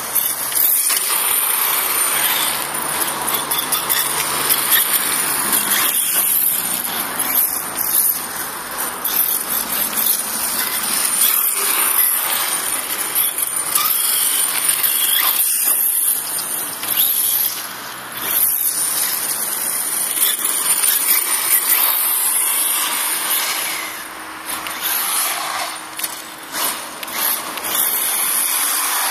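HSP Brontosaurus Pro RC monster truck driving about under its brushless electric motor: a motor whine with tyre noise over the ground, swelling and fading as it makes its runs.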